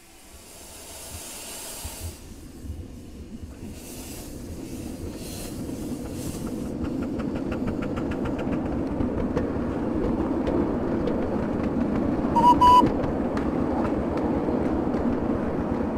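Miniature steam locomotive running on a garden railway, getting steadily louder as it approaches, with quick regular ticking from about halfway through. A short whistle toot about twelve seconds in is the loudest moment.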